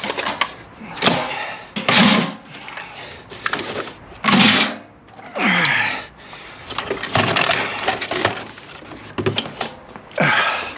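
Scrap and recyclables being shoved and stacked into a load: a series of loud bangs and clatters, about six of them, with a longer scraping drag near the middle.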